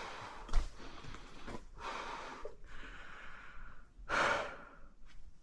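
A person breathing hard, with a few loud breaths; the strongest comes about four seconds in. A sharp knock about half a second in.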